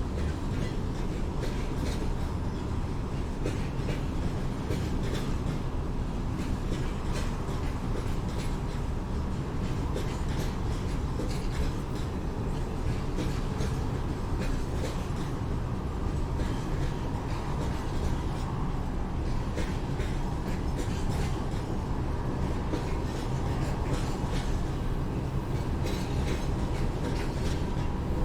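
Train rolling along the city railway: a steady low rumble with frequent clicks from the wheels over the track and a faint steady whine.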